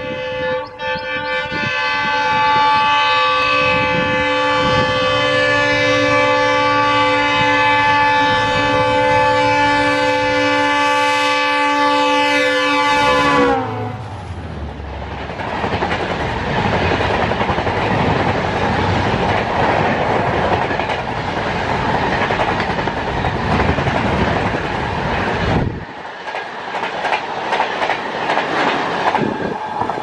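WDG-4D diesel locomotive's multi-tone horn blowing one long continuous blast as it approaches, its pitch dropping as the locomotive passes about 13 seconds in. Then comes the rushing and clickety-clack of the coaches running past at speed, which drops away suddenly near the end as the last coach goes by.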